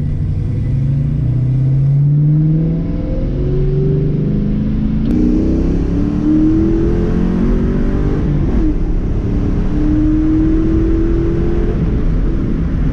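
2001 Ford Mustang GT's V8, through an off-road X-pipe and Flowmaster 40 series mufflers, pulling hard under acceleration. The engine pitch climbs in several stretches, breaking at each gear change.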